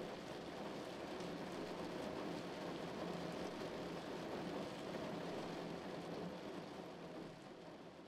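Rainstorm sound effect: rain falling steadily in a dense patter of drops, easing a little near the end.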